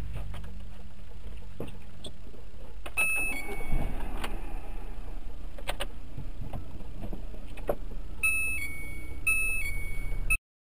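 Steady low rumble of a car driving, heard inside the cabin through a dashcam, with scattered clicks. A two-note electronic tone, a higher note dropping to a lower one, sounds about three seconds in, then alternates several times near the end.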